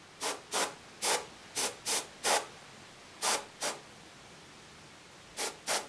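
Airbrush spraying paint in about ten short hissing puffs, mostly in quick pairs, with a pause of nearly two seconds before the last two.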